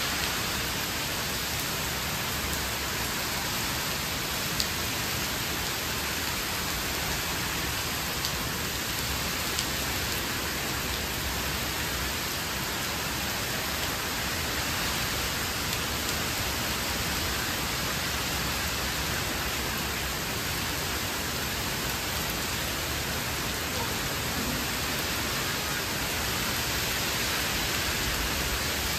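Very heavy rain pouring steadily onto trees and paving: a dense, even hiss that does not let up, with a few single drops ticking close by.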